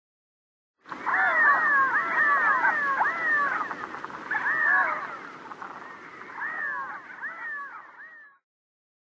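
A flock of redhead drakes giving their catlike, meowing courtship calls, many overlapping at first and fewer after the middle, stopping shortly before the end.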